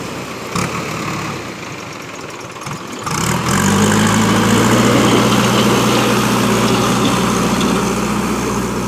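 JCB backhoe loader's diesel engine running, rising about three seconds in to a louder, steady hum as the machine drives its front bucket into a gravel pile.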